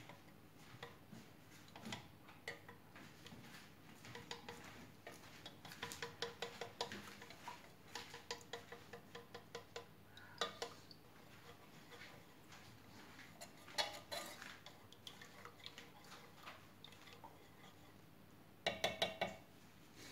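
A thin wooden stirrer scraping and clicking against the inside of a small saucepan as a melted beeswax mixture is stirred. Light, irregular clicks, busiest in the middle, with a quick run of taps near the end.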